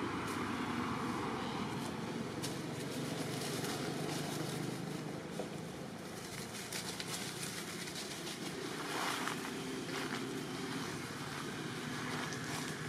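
Steady outdoor background noise, with a few soft rustles of dry leaves about nine to ten seconds in.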